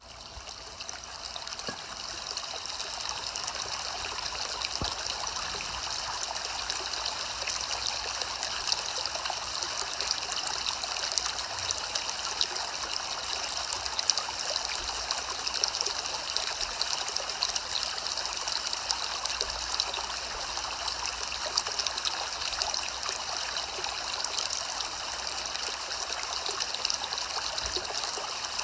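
Soft, steady rain, a fine even patter that fades in over the first second or two.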